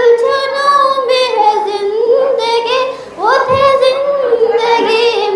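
A girl singing an Urdu nazm solo and unaccompanied, holding long drawn-out notes that glide up and down, with a short break for breath about three seconds in.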